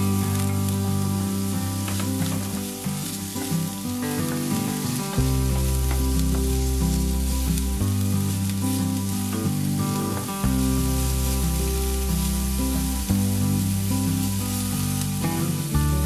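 Chopped onions sizzling in hot oil in a stainless steel wok as a wooden spoon stirs them. Background music with a slow, steady bass line plays over it and is at least as loud.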